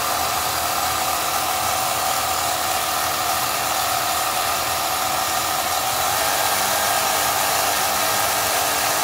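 Electric propulsion motors and running gear of a radio-control scale destroyer model running steadily: an even, loud whirr, which is not exactly quiet and almost sounds like a gas-powered engine.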